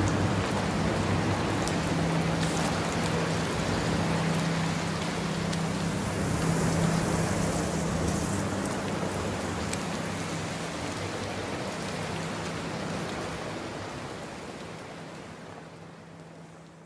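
Steady rain falling and pattering, with a low steady drone underneath for most of it; the whole fades away over the last few seconds.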